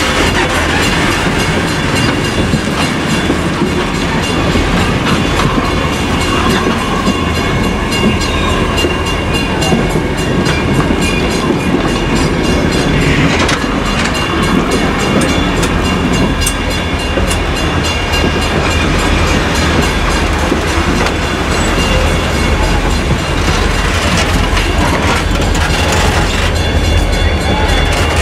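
Old steel passenger coaches of an excursion train rolling past at close range: a steady rumble of wheels on rail with clickety-clack over the rail joints.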